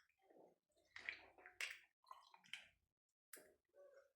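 Faint wet squishing and dripping from hands working the remedy's ingredients of onion, garlic, lime and honey: a few soft, irregular sounds.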